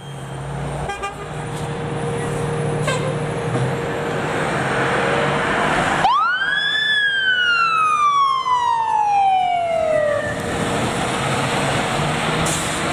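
A 2019 E-One pumper fire engine's diesel runs as it pulls out. About six seconds in, its mechanical siren winds up sharply to a high pitch, then coasts down slowly over about four seconds. Near the end it starts to wind up again.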